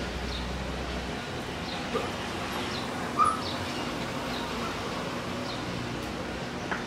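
Birds chirping: short, high, falling calls repeated about once a second over a steady background hiss, with one louder short call about three seconds in.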